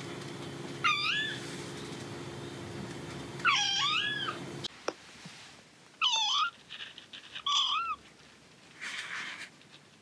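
A young kitten meowing four times: high, bending calls, two in the first few seconds and two more about six and seven and a half seconds in. A brief rustle follows near the end.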